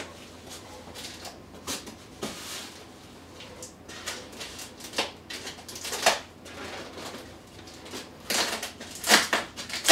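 Packing tape being peeled and pulled from a styrofoam packing block, with scattered rubbing, scraping and clicks of the foam being handled, busier and louder near the end.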